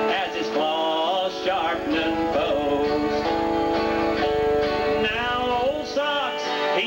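Live country-style music on guitars: acoustic guitars strumming under a melody line that glides up and down in pitch.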